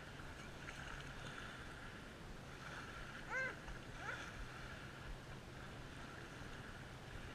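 Lake shallows: small waves lapping and children kicking and splashing in the water over a steady low hum. A short high call, the loudest moment, comes about three and a half seconds in, with a fainter rising one just after.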